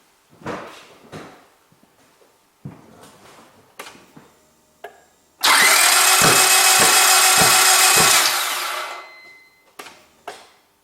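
A few handling clicks and knocks, then about halfway in the starter motor cranks the gasoline engine for about three seconds with a regular beat. The engine does not catch, and the whirr winds down. The cranking is being done for a spark test on a no-start engine.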